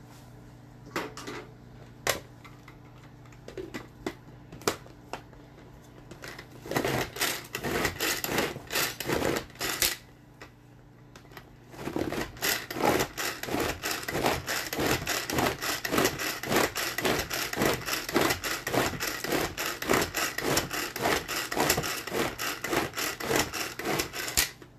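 Tupperware Power Chef pull-cord chopper worked by hand: a few clicks as the lid is handled, then fast, repeated whirring rasps as the cord is yanked over and over and the blades spin through the food. One run of pulls comes a few seconds in, then a short pause, then steady pulling to the end.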